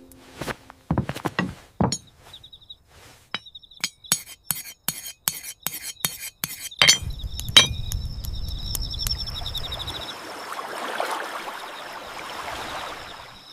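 Dishes and glasses clinking, a quick run of sharp clicks for about seven seconds, then steady rain with a low rumble for a few seconds and a faint high chirping over it.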